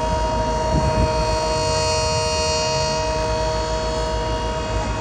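Several mini sirens sounding together, each holding a steady pitch so that their tones layer into a loud chord, with a fast low flutter underneath.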